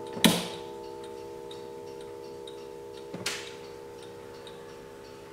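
1880s W&H German triple-fusee mantel clock: the last notes of its chime ringing out and slowly fading, over the steady ticking of the movement. Two sharp knocks cut in, a loud one just after the start and a softer one about three seconds in.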